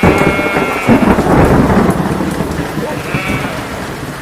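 A thunderclap breaks in suddenly and rumbles away over about three seconds, over steady rain. Sheep bleat at the start and again near the end.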